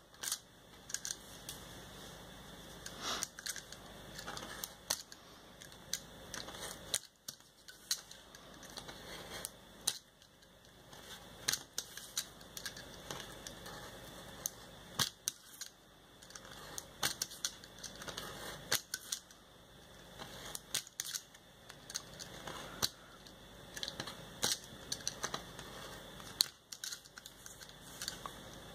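Snap-off craft knife with a sharp-angled blade cutting through paper: a run of irregular sharp ticks and short scratches as the blade is drawn along the outlines in small strokes.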